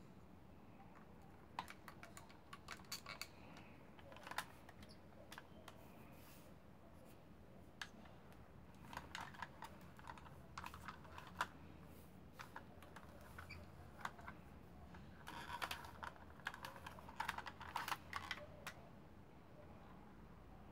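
Hard plastic parts of a vintage Transformers toy clicking and clacking as it is handled and its pieces are moved: scattered clusters of small, sharp clicks, busiest around the middle and again near the end.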